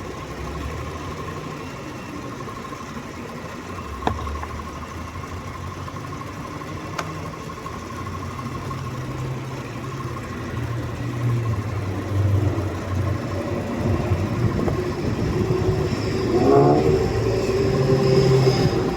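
Jeep Grand Cherokee engine idling with the air conditioning running, a thin steady whine over the low hum. There are a couple of faint clicks, and the hum grows louder toward the end.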